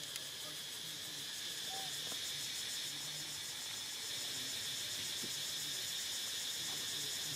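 Steady chorus of insects in the forest, a continuous high-pitched buzz that holds level throughout.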